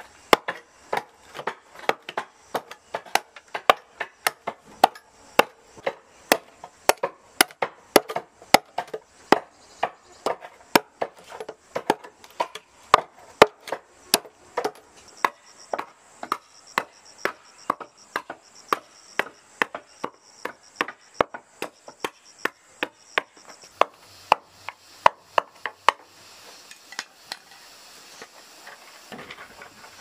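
Machete chopping into a halved bamboo pole: sharp wooden knocks about twice a second, which stop a few seconds before the end.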